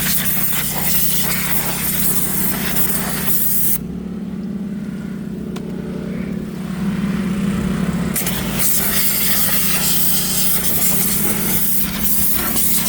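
Pressure washer spraying water onto a greasy engine: a loud hiss of spray over the steady hum of the washer's motor and pump. The spray stops for about four seconds near the middle, leaving the motor running, then starts again.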